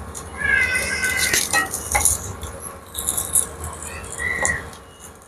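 Potato slices frying in oil in a nonstick pan, with a wooden spatula scraping and tapping as they are turned. A few short high-pitched squeals stand out, the loudest about half a second in and another near the four-second mark.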